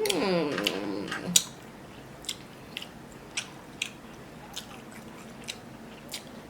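A person eating close to the microphone. A short hummed 'mmm' fills roughly the first second and a half, then soft, scattered chewing clicks follow.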